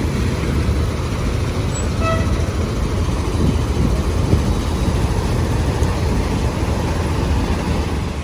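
Steady road traffic noise, heavy in the low end, with a brief high-pitched tone about two seconds in.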